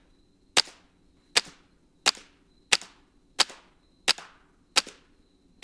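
A semi-automatic .22 LR rifle fired in a steady string of about eight sharp shots, roughly 0.7 seconds apart, each followed by a brief echo.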